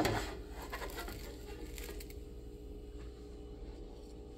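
A wooden spatula knocks once sharply against a nonstick frying pan, followed by a few faint scrapes and a low, steady background hum.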